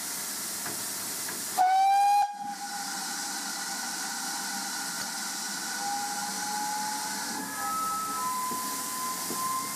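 GWR 4500 class small prairie tank locomotive No. 4566 sounding one short whistle blast, well under a second long, over the steady hiss of steam from the standing engine.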